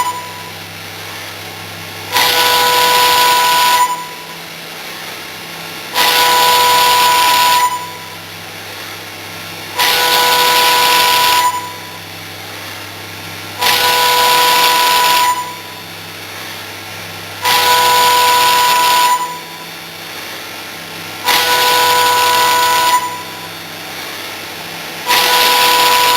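Milling machine cutting aluminium in repeated passes: each cut is a loud high ringing tone over a hiss lasting about a second and a half, coming roughly every four seconds, six full times and a seventh starting near the end. Between cuts the machine keeps running more quietly with a low hum.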